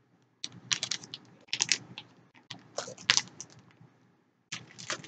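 Plastic-wrapped goodies being handled and rummaged in a cardboard box: four short bursts of crinkling and rustling packaging with quiet gaps between.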